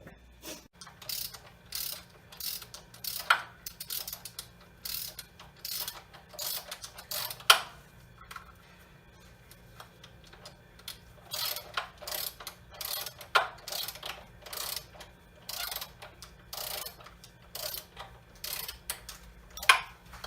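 Hand ratchet wrench turning bolts in short, irregular bursts of rapid clicking strokes. A few sharper metallic clacks stand out, the loudest about seven and a half seconds in.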